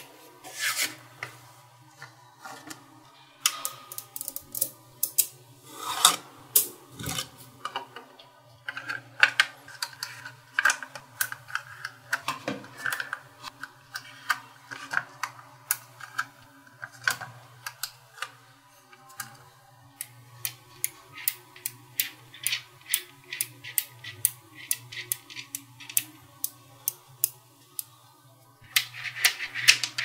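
Small neodymium magnet balls clicking and snapping together as they are set in place and pressed into rows, with some rubbing of balls against each other. The clicks come irregularly and grow thick and rapid near the end.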